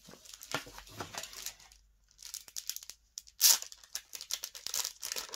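Thin clear plastic sleeve crinkling and tearing as it is pulled open by hand, a run of close crackles with a short lull near two seconds and the loudest crackle about three and a half seconds in.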